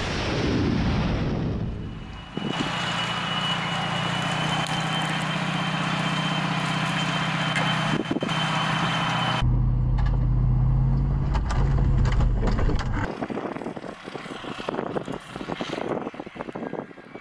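The rumble of a missile blast dies away over the first two seconds. Then comes the heavy diesel engine of an Iskander missile launcher vehicle, running steadily with a thin high whine. After a cut it gives a deeper, heavier drone, which stops about 13 seconds in, leaving scattered clicks and rustling.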